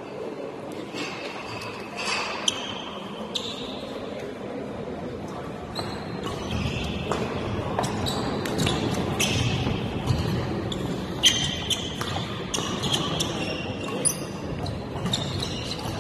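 Badminton rally in a large indoor hall: repeated sharp racket strikes on the shuttlecock and players' shoes on the court floor, at an irregular pace throughout, with faint background voices.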